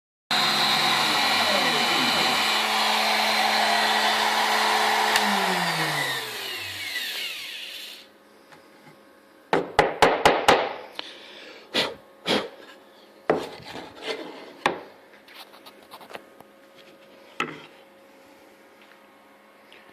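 Router spindle on a homemade CNC machine running while it cuts wood, then switched off: its pitch slides down and it winds to a stop about 6 to 8 seconds in. After it stops, a series of sharp knocks follows.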